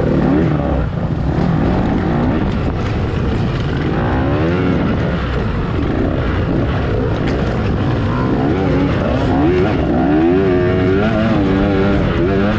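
Dirt bike engine revving up and down over and over as the throttle is worked while racing a hare scramble.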